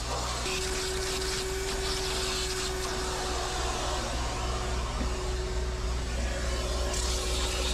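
Vacuum cleaner running steadily as its hose and crevice nozzle are worked over a cloth truck seat and around the cab, a constant whooshing hiss with a steady whine that comes in about half a second in. A steady low hum lies underneath.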